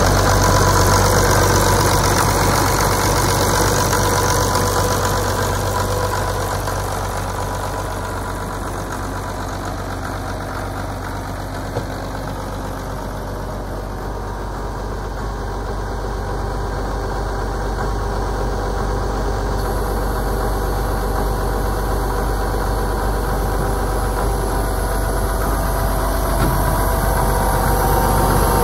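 1979 White 2-105 tractor's diesel engine idling steadily, dipping a little in loudness through the middle and coming back up near the end.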